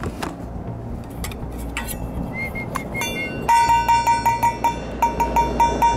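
Two metal bowls banged together in a quick run of ringing clangs, about five a second, with a short break midway, after a few lighter clinks. A dinner call meant to tell a dog that food is being served.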